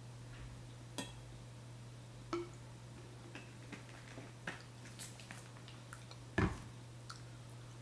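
Scattered small clicks and light knocks from a drink bottle and dinner plate being handled, the loudest a dull knock about six seconds in, over a steady low hum.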